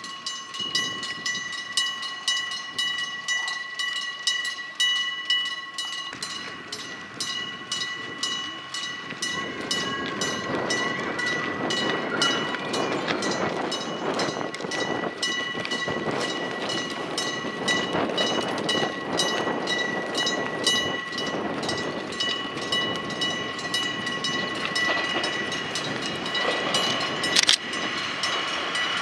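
Level-crossing warning bell ringing in rapid, even repeated dings. Meanwhile a 1960s-built diesel railcar approaches; its engine and wheel noise swell from about six seconds in and stay loud. A sharp knock comes near the end.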